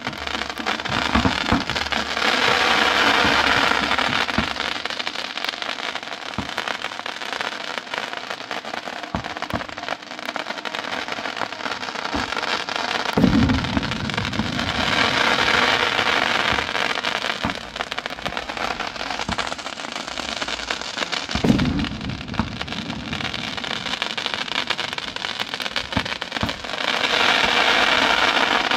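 Fireworks on a burning castillo, a pyrotechnic tower: a continuous dense crackling and hissing that swells and fades in waves, with a single heavy bang about 13 seconds in and another about 21 seconds in.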